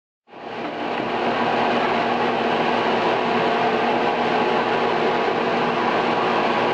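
Blower of a dryer-vent test rig running steadily, air rushing out of a bare metal duct pipe before the roof vent hood is fitted: an even whoosh with a faint low hum, cutting in just after the start.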